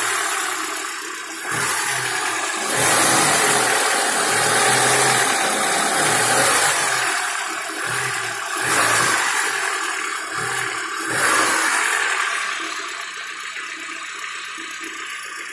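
Lada Niva engine revved in about six short blips, then dropping back and fading over the last few seconds. The engine has a knock in it.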